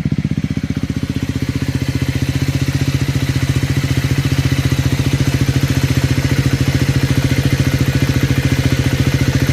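Triumph Scrambler 400 X's 398 cc single-cylinder engine idling steadily after a cold start, an even fast pulse. The owner posts this running noise as an abnormal engine noise.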